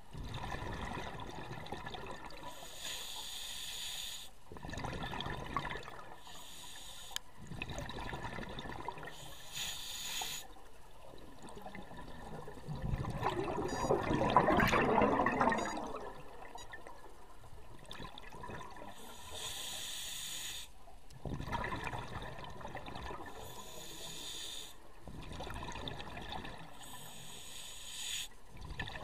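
A scuba diver's regulator breathing underwater: a short hissing inhalation alternating with a longer rush of exhaled bubbles, about seven or eight breaths. About halfway through, one longer, louder rush of bubbles.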